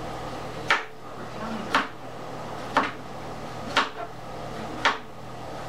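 Knife chopping carrots on a cutting board: slow single chops, a sharp knock about once a second.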